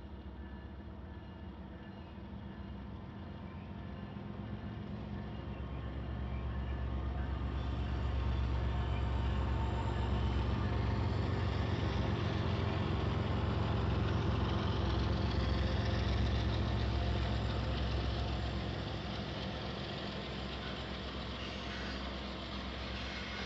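Union Pacific diesel freight locomotives approaching: a low engine rumble that grows louder over several seconds, holds, then eases slightly in the last few seconds.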